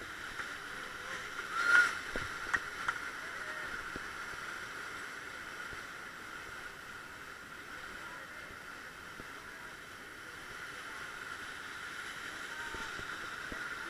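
Rushing white water of a river rapid around an inflatable raft, a steady wash of noise, with a brief louder sound about two seconds in.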